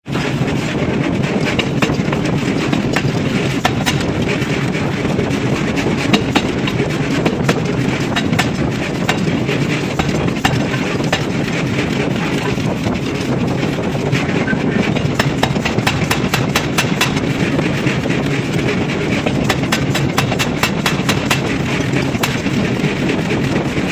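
Power forging hammer striking a red-hot steel block, a dense, steady clatter of rapid sharp knocks over loud machine noise.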